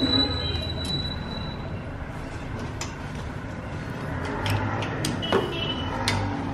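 Light metallic clicks and taps as washers and nuts are fitted by hand onto the cylinder studs of a Royal Enfield Bullet engine: a handful of scattered sharp ticks over a steady low background noise. A thin, steady high tone runs through about the first second and a half.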